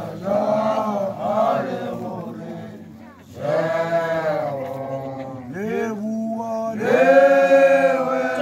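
Male voices chanting a song together without instruments, in long held phrases with a brief break about three seconds in.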